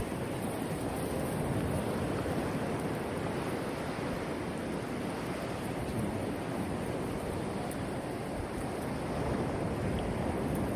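Surf washing steadily on the beach, a continuous rushing noise, with some wind buffeting the microphone.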